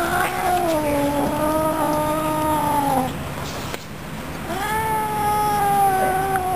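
Domestic cat giving two long, drawn-out angry yowls, each about three seconds long and slowly falling in pitch, with a short pause between them. It is the warning yowl of a cat guarding a green bean that is being taken away from it.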